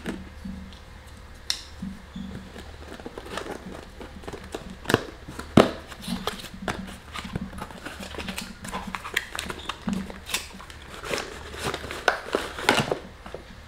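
Cardboard box being slit open with a knife and its flaps pulled apart by hand: irregular scrapes, clicks and rustles of cardboard, the sharpest snaps about five seconds in.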